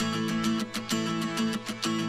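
Background music led by a strummed guitar, with steady chords and regular plucked strokes.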